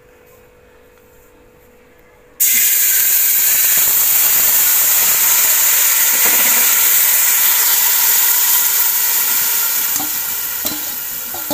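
Yogurt-and-spice-marinated chicken hitting a hot pot and sizzling hard with rising steam. The sizzle starts abruptly about two seconds in, holds loud and steady, then slowly dies down near the end.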